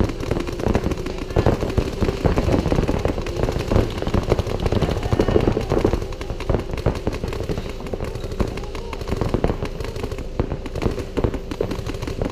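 Paintball markers firing rapid strings of shots back and forth between several players, a little quieter after about six seconds, over a steady hum.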